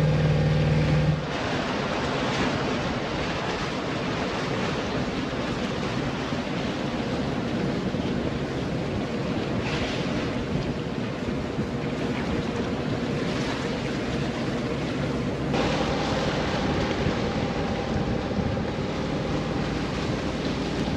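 Strong wind buffeting the microphone over choppy water rushing past a small sailboat. The boat's engine hum is heard for only about the first second, then cuts off suddenly, leaving an even rush of wind and water.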